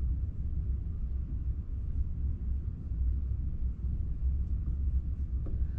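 Steady low rumble of room background noise, with no distinct events standing out.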